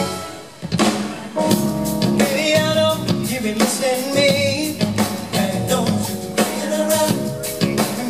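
Live pop music from a male vocal group singing with a band and drum kit. The music drops briefly about half a second in, then comes back, with the voices singing over it from about a second and a half in.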